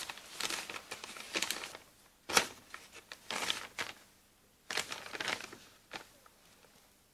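A sheet of letter paper rustling and crinkling in several short bursts as it is handled and unfolded.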